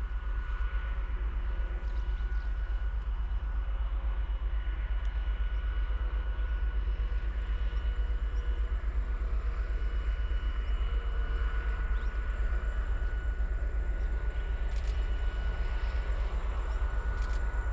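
Diesel locomotive engines running steadily, a continuous low throb with a faint steady high whine over it.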